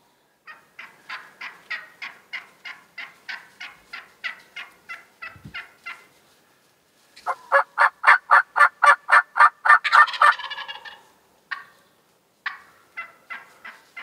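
Wild turkey calling in long runs of evenly spaced, sharp yelps, about four to five a second. The second run is louder, and a few scattered yelps follow near the end.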